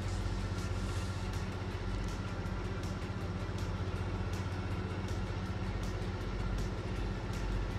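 A steady low hum in the background, with faint crackles of a small plastic bag as a camera battery is handled and unwrapped.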